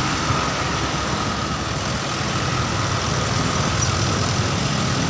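A vehicle engine running steadily at idle, an even noisy hum with a low rumble.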